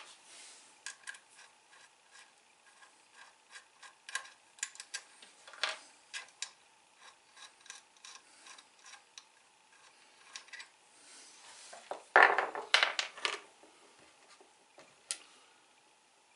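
Small metal parts and tools handled on a workbench: scope ring caps, screws and a small driver giving scattered light clicks and rubs, with a louder run of clinks about twelve seconds in.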